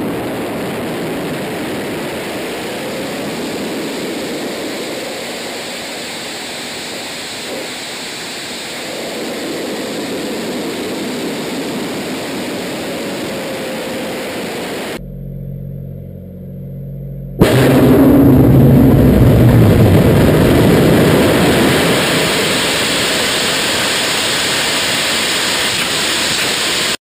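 Rocket motors of a rocket sled carrying an ejection-seat test cockpit down the rail track, firing with a steady rushing noise. It drops away briefly about fifteen seconds in. A much louder rush of rocket noise then starts suddenly at about seventeen seconds and runs on.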